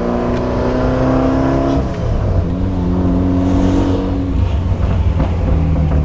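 Mitsubishi Lancer Evolution's turbocharged four-cylinder engine pulling the car along, its pitch creeping up, then dropping about two seconds in at an upshift before running steadily at lower revs.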